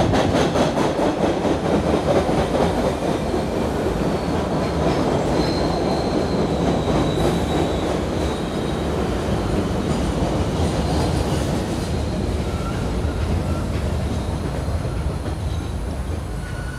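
MBTA Red Line subway train pulling into the station and braking to a stop: wheels rumbling on the rails with a fast run of clicks at first that fades as it slows, a high squeal from the brakes midway, and the noise dying down as it comes to rest.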